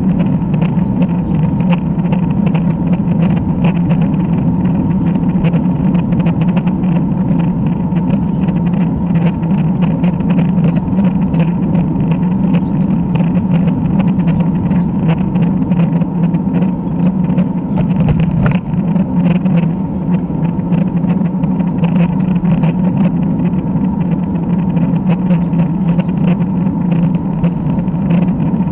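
Steady rushing noise of wind and road rumble on the microphone of a camera riding on a road bicycle, loud and unbroken.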